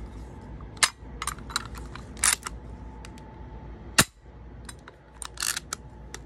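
Marksman repeater spring-piston BB pistol being worked: a run of sharp clicks and scraping snaps as the mechanism is cocked, then one loud sharp snap about four seconds in as the spring fires, followed by more clicks as it is handled again.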